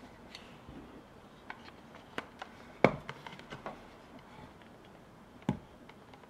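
Wood carving by hand: scattered light clicks and taps of a carving tool working and handling a wooden skull, with two louder knocks about three seconds in and again near five and a half seconds.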